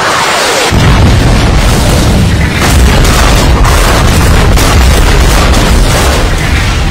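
Missile-strike explosion sound effect: a rushing whoosh at the start, then under a second in a heavy, deep blast that rumbles on without a break.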